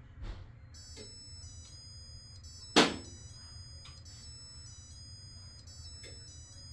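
Maytag washing machine's electronic beeper playing a short tune of high, steady beeps that step up and down in pitch, typical of an end-of-cycle signal. A sharp knock about three seconds in is the loudest sound, over a low hum.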